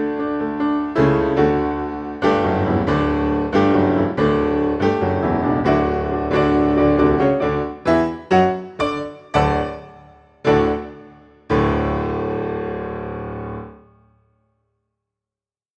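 Background piano music with struck chords, ending on a final chord that rings out and fades to silence about fourteen seconds in.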